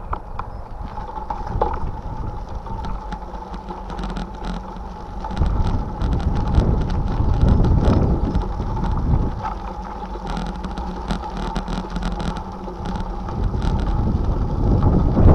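Wind buffeting the microphone of a camera on a moving bicycle, a low rumble that gusts louder in the middle and again near the end, over tyre noise and small rattles from the ride on the paved path.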